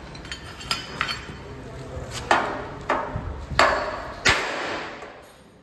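Panel-beating hammer striking a Hyundai i20's dented steel front fender against a dolly, working out the dent. About seven irregular blows, each with a brief metallic ring, the heaviest ones in the second half.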